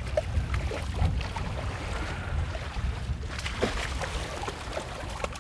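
A steady low rumble of wind on the microphone, with a hooked Arctic char splashing at the surface in the shallows as it is reeled in.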